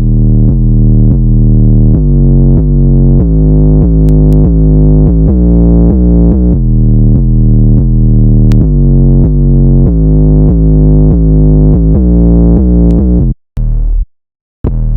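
Muffled electronic synth melody with a heavy bass underneath, about three notes a second. It cuts off about thirteen seconds in, then returns in short chopped stutters near the end.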